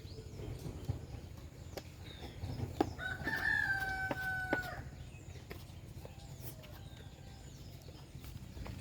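A rooster crowing once, a long call about three seconds in, with a few sharp clicks around it over a steady low rumble.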